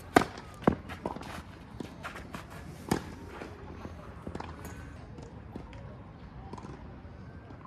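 Tennis ball struck by rackets and bouncing on a clay court. The loudest crack comes just after the start on the serve, with further sharp hits about half a second and three seconds in.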